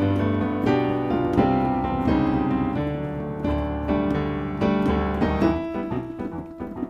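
Digital keyboard playing a piano sound: chords struck in a steady rhythm over low bass notes, with no singing, getting quieter near the end.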